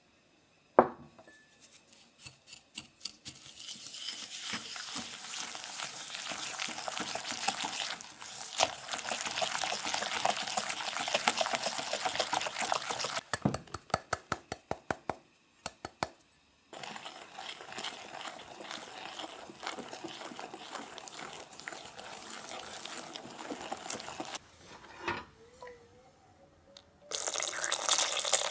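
Wire whisk beating egg yolks in a glass bowl, a fast, rhythmic wet scraping. Partway through it stops for a run of separate taps as cornstarch is shaken in from a small sifter, then the whisking starts again.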